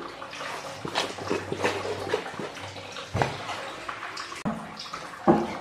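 Small clicks and knocks of kitchen utensils and containers being handled, with a louder knock about three seconds in and another near the end, over a steady faint hiss.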